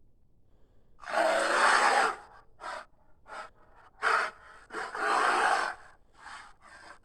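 Hyaenodon creature sound effect standing in for Andrewsarchus: a run of harsh, breathy huffs and snorts. A long exhalation comes about a second in and another about five seconds in, with short sharp puffs between and after them.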